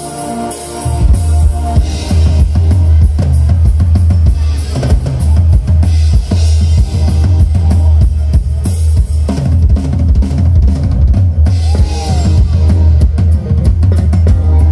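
Live band playing at full volume, led by a drum kit with kick drum and snare hits over a heavy, steady bass. The full band comes in about a second in, after held chords.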